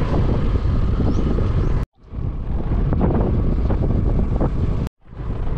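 Wind buffeting the camera's microphone outdoors, a loud, steady rumble. It cuts off abruptly twice where the footage is edited.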